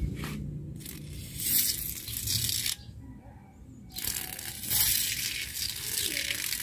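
Rexco 70 aerosol spray can hissing in two long bursts, the second longer, as foaming penetrating spray is laid onto carbon deposits on a two-stroke cylinder head to soften them.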